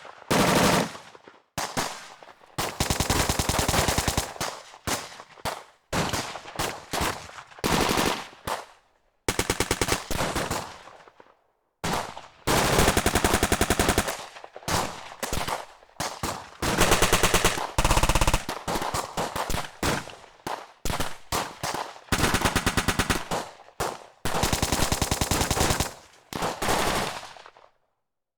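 Machine-gun and automatic-weapon fire in a string of bursts: long, rapid strings of shots alternate with short bursts of a few rounds, with brief silences between them and a short ringing tail after each burst.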